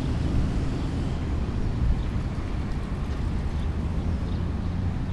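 Small radio-controlled racing boat running across a pond, its motor a faint steady hum under a constant low rumble.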